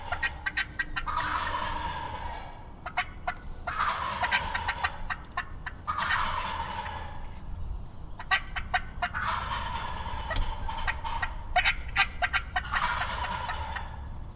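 Wild turkey gobblers gobbling in answer to calling, about five gobbles in a row, each one a rattling burst of a second or two.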